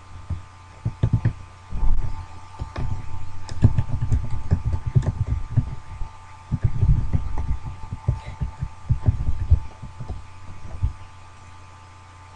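Irregular clusters of deep, dull thumps and knocks, with a few sharper clicks among them, over a steady high hum; the thumps die away near the end.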